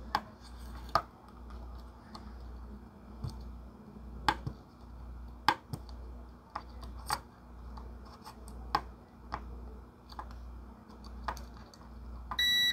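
Multimeter probe tips clicking and scraping against small surface-mount components on a circuit board, about a dozen sharp irregular clicks, as capacitors are checked for shorts. Near the end the multimeter gives one short, high continuity beep.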